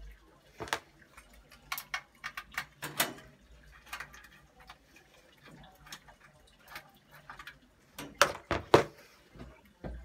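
Scattered small clicks and metallic taps of a screwdriver undoing the screws that hold a boiler thermostat, with parts knocking as they are handled inside the open boiler casing. The loudest knocks come in a quick cluster near the end.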